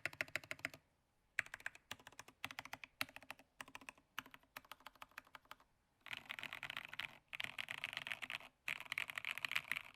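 Computer keyboard typing. Quick runs of keystrokes with short pauses come first. From about six seconds in, the typing becomes a dense, very fast clatter in three long runs, split by brief gaps.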